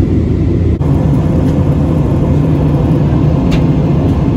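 Airliner cabin noise in flight: a loud, steady low rumble of the jet engines and the airflow past the fuselage, heard from a window seat. A short break about a second in, after which the rumble carries on.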